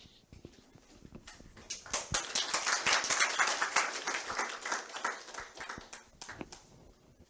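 Audience applauding: scattered claps that build into a burst of applause about a second and a half in, then thin out and die away near the end.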